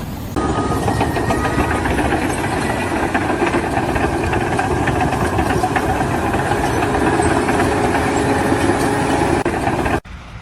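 Machinery running steadily and loudly; it starts abruptly about half a second in and cuts off abruptly near the end.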